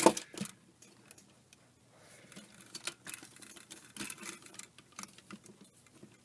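Scattered light clicks and taps of plastic Transformers action figures being handled and posed.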